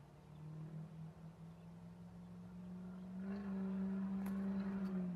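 A Ford Power Stroke diesel pickup sounding a steady, held tone from a distance, which steps up a little in pitch and grows louder about three seconds in, then stops abruptly near the end.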